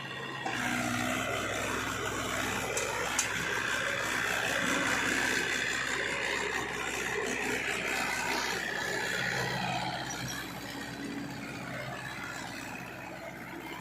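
Diesel engine of heavy machinery running under load, swelling in the middle and easing off toward the end.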